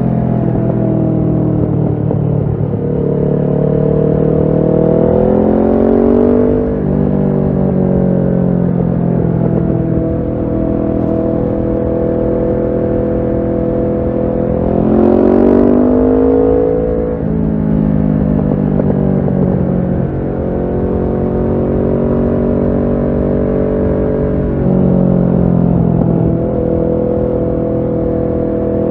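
Kawasaki Ninja 650's parallel-twin engine through a Shark SRC-4 full exhaust system, under way: it climbs in pitch as it accelerates a few seconds in and again about halfway, eases off just after, and holds a steady pitch for long stretches between.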